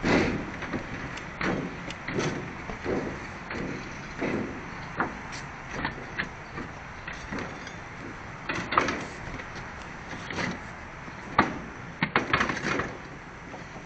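Wind rushing over the microphone, with scattered knocks and clatters; the loudest comes at the very start as a sheet of foam insulation board is lifted beside the camera.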